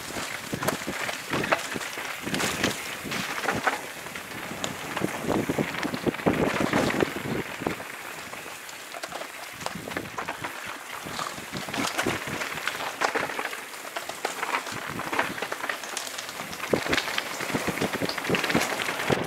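A YT Tues CF downhill mountain bike riding down a forest trail. Its tyres crackle over dry leaves and dirt, and the bike rattles steadily, with frequent sharp knocks as it goes over roots and stones.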